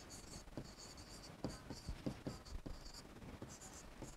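Stylus writing on a digital board: faint scratchy strokes and light taps as letters are written.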